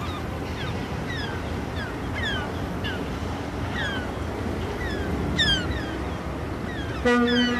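Steady open-air din with many short, falling whistled calls scattered through it. About seven seconds in, a loud, deep horn blast with a rich, buzzy tone starts and is still sounding at the end.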